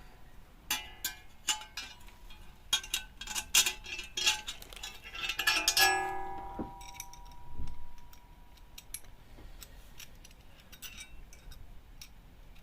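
Small metal fasteners (bolts, nuts and washers) clinking and rattling as they are handled, with a brief metallic ring about six seconds in, then quieter handling.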